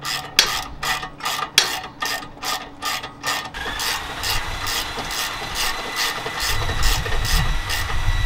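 Hand ratchet wrench clicking in quick, even strokes, about three clicks a second, as a suspension bolt is turned.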